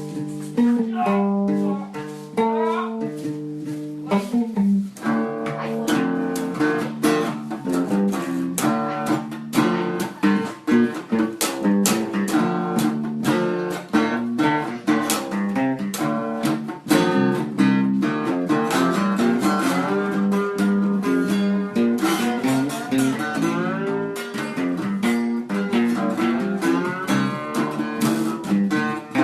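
Instrumental guitar music: plucked guitar notes, a few held notes for the first few seconds, then a quick, busy run of notes.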